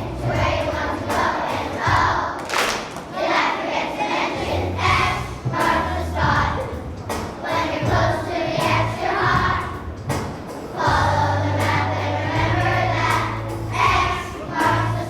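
A choir of young children singing together to a musical accompaniment, with held low bass notes underneath.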